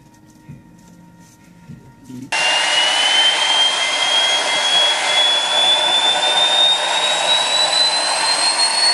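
Homemade turbocharger jet engine running loud, cutting in abruptly about two seconds in: a strong rushing roar with a high whine that climbs steadily in pitch as the turbine speeds up.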